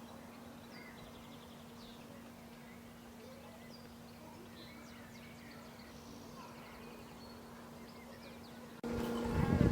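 Faint songbirds chirping with a few quick trills, over a steady low hum. Near the end the sound cuts abruptly to something much louder, with a stronger hum and a few thumps.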